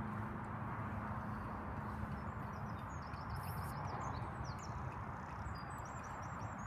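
A horse's hooves are faintly heard as it moves over a sand arena surface, under a steady low outdoor rumble. A small bird sings two quick runs of short high notes, about three seconds in and again near the end.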